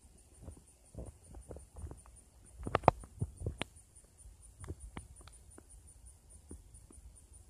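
Faint high-pitched insect chirping, pulsing about four times a second, with scattered light clicks and taps and a louder cluster of taps about three seconds in.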